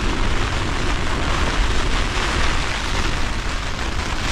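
Storm wind and driving rain battering a Nortent Vern 2 tent's flysheet, heard from inside: a loud, steady rush of rain on the fabric over a low rumble of buffeting gusts.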